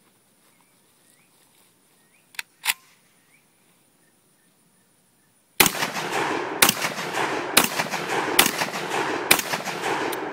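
Saiga-12 semi-automatic 12-gauge shotgun firing 2 3/4-inch high-brass field loads: five loud shots about a second apart in the second half, each followed by an echoing tail. A few seconds before the first shot there are two sharp clicks close together.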